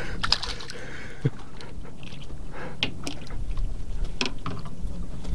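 Small engine running steadily, a low hum, with scattered light clicks and knocks from gear being handled on the boat.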